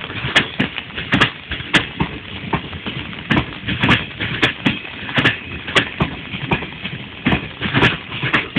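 Passenger coaches' wheels clattering over rail joints as a departing train rolls through the station: a continuous, uneven series of sharp knocks, a few a second, over a steady rumble.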